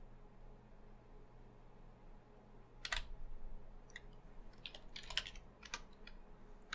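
A handful of separate keystrokes on a computer keyboard, typing a terminal command, starting about three seconds in.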